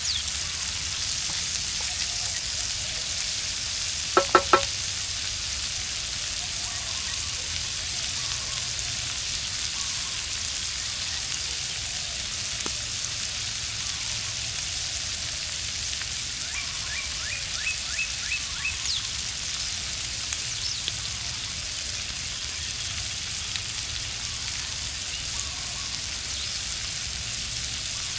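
Food sizzling in a pan over a campfire, a steady hiss, with three quick ringing knocks about four seconds in.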